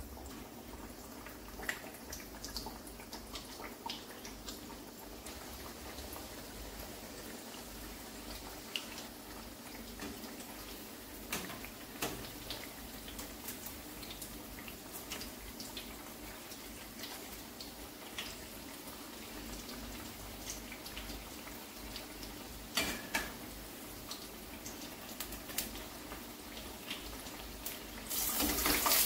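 Besan-battered bottle gourd slices shallow-frying in hot oil in a frying pan: a steady sizzle full of small crackling pops, with a few sharp knocks of a slotted metal spoon against the pan. The sizzle grows suddenly louder near the end.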